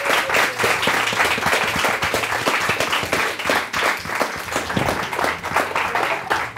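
Studio audience applauding: many hands clapping densely and steadily.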